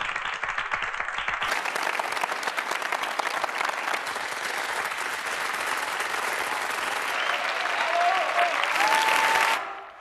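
An audience applauding, many hands clapping in a dense, steady patter. A single pitched call rises over the clapping near the end, and the applause cuts off suddenly just before the end.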